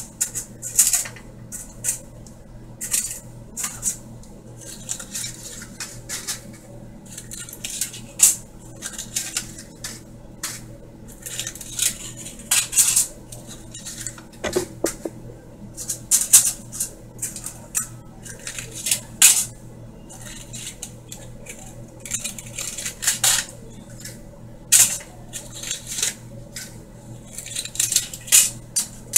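Irregular clinks and rattles of kitchen utensils and dishes, a few sharp clicks every second or so, over a steady low hum.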